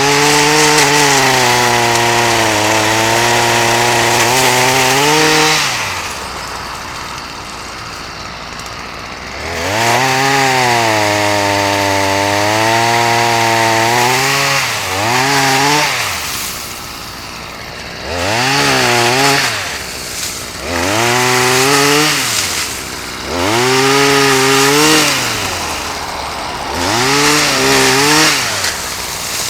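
Two-stroke chainsaw revved up to full speed again and again, about eight times, each burst lasting one to five seconds before it drops back to idle, while it cuts wood.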